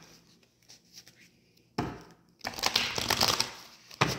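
Tarot cards being handled: a sharp knock about two seconds in, then about a second of rustling and slapping, and another knock near the end.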